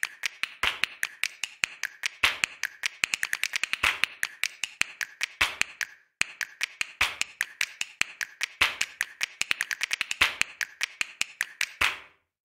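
A rapid, irregular run of sharp clicks or taps, several a second, with a short break about six seconds in; they stop near the end.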